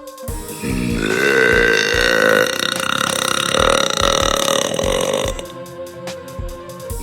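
A girl's single long burp, lasting about five seconds and starting about half a second in, over background music with a steady beat.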